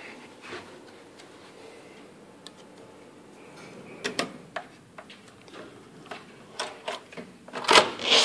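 A quiet room hum, then from about halfway a run of irregular sharp clicks and knocks, the loudest two close together near the end.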